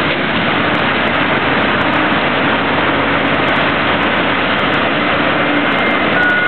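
A heavy diesel dump truck with a pup trailer driving off, its engine running under a steady rushing noise. Near the end, a truck's backup alarm starts beeping.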